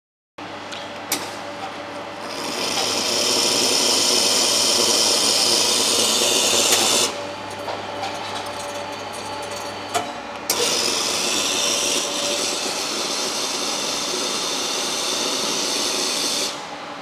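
Espresso machine steam hissing hard around a steel brewing cylinder, in two long loud spells with a quieter stretch between, over a steady machine hum. Sharp clicks come about a second in and again just before the second spell.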